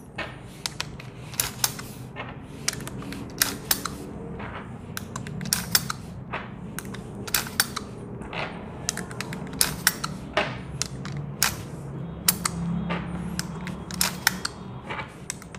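Legends Cowboy lever-action CO2 airgun rifle being loaded: BB-holding shells pushed one after another into the rifle, giving a run of sharp, irregularly spaced clicks, about one to two a second.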